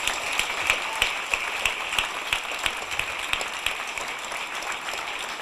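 Audience applauding: dense, steady clapping from many people, easing slightly toward the end.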